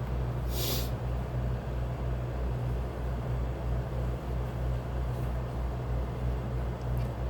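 Steady low hum throughout, with a brief hiss about half a second in, likely a sharp sniff between sneezes.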